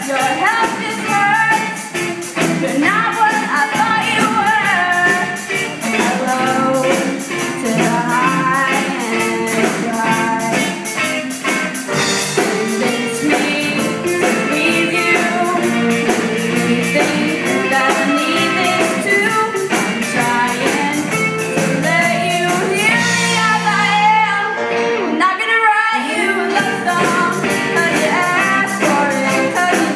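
Live rock band playing a song with a singer over electric guitars, electric bass and a drum kit. Near the end the drums and cymbals drop out for a couple of seconds, then the full band comes back in.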